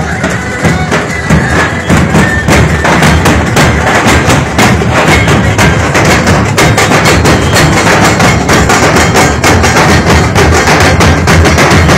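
Loud music dominated by fast, heavy drumming. The melodic part drops away about two seconds in, leaving dense, rapid drum strokes.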